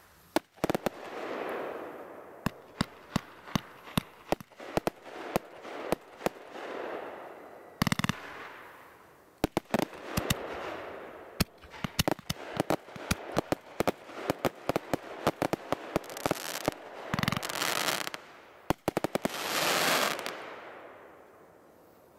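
Fireworks going off: many sharp bangs and pops, some single and some in quick crackling strings, with swells of hissing noise a second or two long between the volleys.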